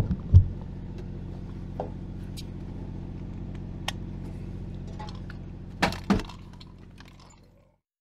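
Peterbilt 379's diesel engine idling steadily, heard inside the cab, with a few sharp knocks and clinks from a corgi's harness, leash clip and paws as the dog moves about, loudest right at the start and in a pair about six seconds in. The sound fades out near the end.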